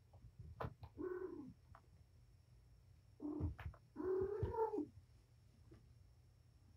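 A cat gives three short calls: one about a second in, a second just after three seconds, and a longer third call about four seconds in. A few light knocks sound between them.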